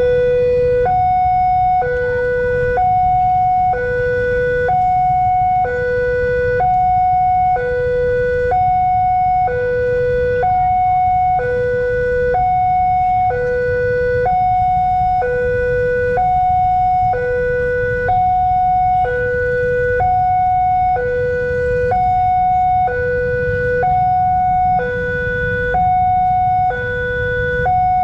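Railway level-crossing warning siren sounding a two-tone alarm, a lower and a higher tone of about a second each alternating over and over, with short breaks between them. It signals that the barriers are down for an approaching train. A steady low rumble runs underneath.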